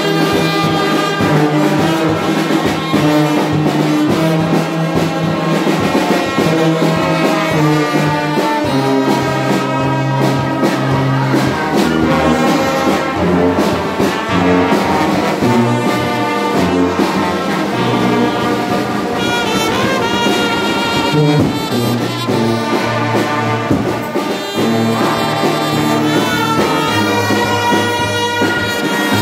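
Brass band of trombones, trumpets and euphonium playing a tune in several parts, with sustained notes over a bass drum beat.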